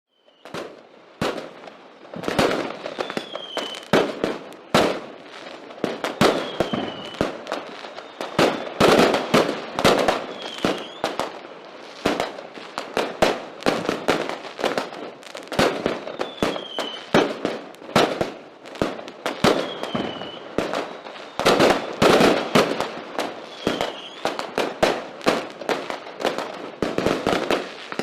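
Fireworks going off in a dense, irregular barrage of bangs and crackles, many shots a second, starting suddenly about half a second in.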